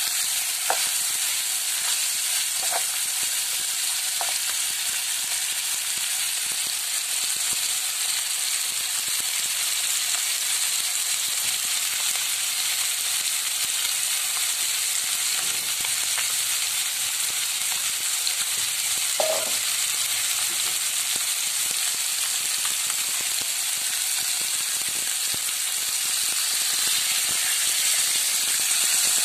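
Chicken pieces frying in hot oil in a nonstick pan: a steady sizzle, with a few knocks of a wooden spatula against the pan in the first seconds and once more later. Near the end, water is poured into the pan and the sizzling grows a little louder.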